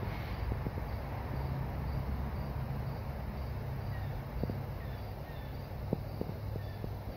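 Outdoor ambience of a cricket chirping at an even, steady rate, over a low steady hum. A few faint short falling notes come in during the second half, with a few faint clicks.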